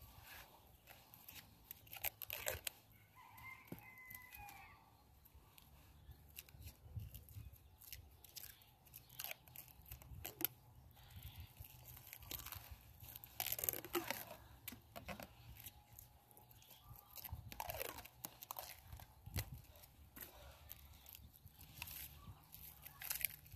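Irregular crinkling, scraping and tearing sounds of hands working plastic material, such as grafting tape being stretched and wrapped over a chip-bud graft, in short bursts with pauses.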